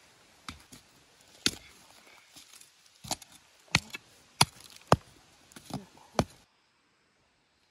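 A digging tool chopping into loose forest soil: about ten sharp, irregular strikes with dirt scattering, cutting off abruptly a little over six seconds in.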